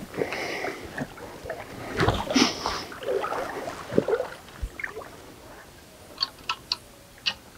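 Handling noise from a spinning rod and reel: rustling, with a swishing burst about two seconds in, then a few sharp clicks near the end.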